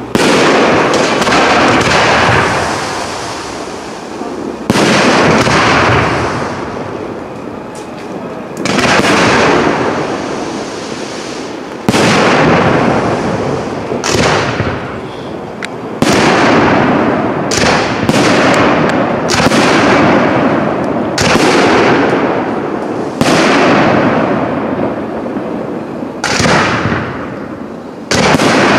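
Aerial firework shells bursting one after another in a professional display: a sharp bang for each, followed by a noisy tail that dies away over a second or two. The bangs come every few seconds at first, then in a quicker run of several about two-thirds of the way through.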